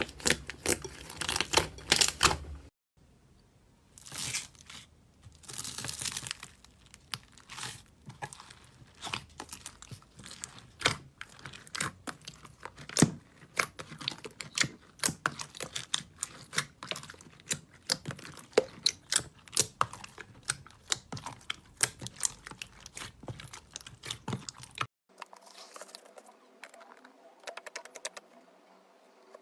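Slime being squeezed, stretched and poked by hand, giving a dense run of irregular small crackling pops and clicks. There is a short break about three seconds in, and the crackling is fainter near the end.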